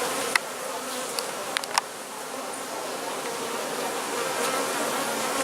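A large honeybee colony buzzing steadily as its comb is lifted out of the barrel it has nested in, with a few sharp clicks in the first two seconds.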